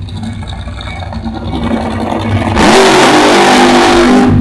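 Nitro Funny Car engine idling with a low rumble, then about two and a half seconds in going to full throttle in a sudden, very loud blast for under two seconds, cut off sharply near the end: a burnout at the starting line.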